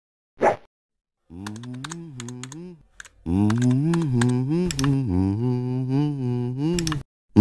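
A man's voice humming a wandering low tune over the clicking of a computer keyboard being typed on, as a cartoon sound track. A short sound about half a second in, and a brief rising tone at the very end.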